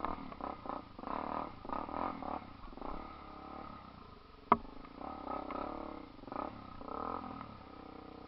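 Off-road vehicle engine revving up and down unevenly under load on a rough trail, with one sharp knock about four and a half seconds in.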